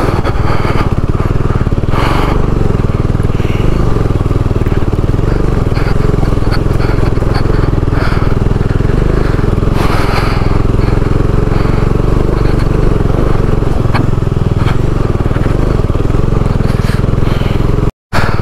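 Motorcycle engine running steadily while the bike is ridden over a rough, rocky dirt track, with occasional knocks and jolts from the stony surface. The sound cuts out for a moment near the end.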